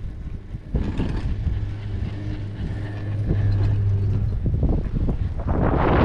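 Wind buffeting the camera microphone on a downhill ski run through powder snow, mixed with the rush of the skis through the snow, which gets louder near the end.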